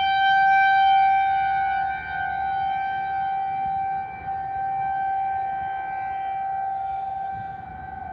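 Federal Signal 2001-SRN rotating outdoor warning siren sounding a steady alert tone during a siren test. The pitch holds level while the loudness rises and falls as the rotating horn sweeps past.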